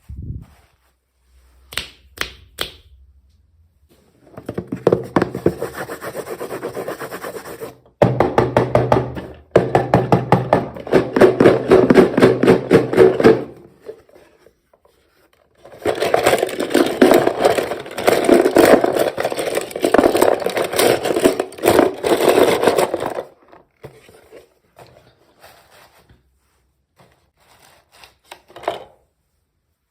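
Rapid, dense rubbing or scraping strokes in two long runs, each several seconds, with a few small clicks before and after.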